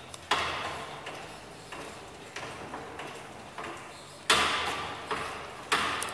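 Metal clanks and clicks from a manual hydraulic drum stacker as its pump is worked by handle and foot pedal. A few sharp clanks ring out briefly, the loudest about four seconds in, with lighter ticks between.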